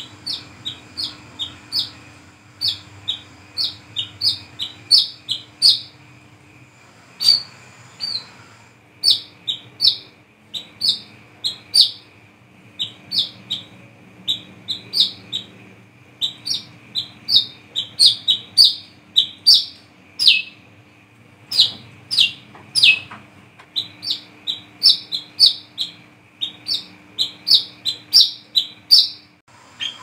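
Brown-throated sunbird (kolibri kelapa) calling: a long run of sharp, high chirps, about two or three a second, with a short break about seven seconds in. A faint steady hum lies underneath.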